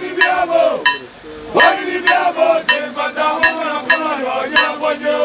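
Voices singing over a regular metallic clinking beat, about three strikes every two seconds.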